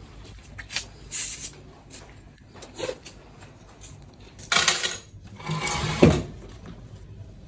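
Handling noises: soft clicks and rustles, then a louder rustle and jingle of a bunch of keys past the middle, ending in a knock on a wooden tabletop about six seconds in.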